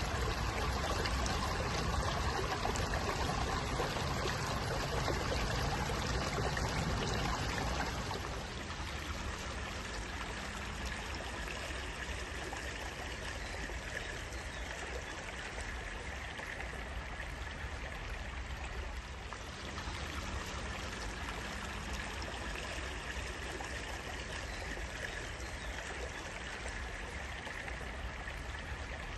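Running water of a small stream, a steady rushing and trickling. It drops to a quieter, gentler flow about eight seconds in.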